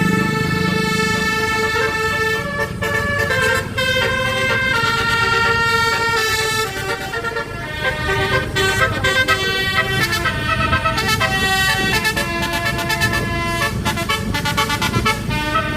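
Basuri telolet bus horn, a multi-tone musical air horn, playing a melody: loud held notes that step from pitch to pitch, with quicker, choppier notes in the second half. A low rumble runs underneath.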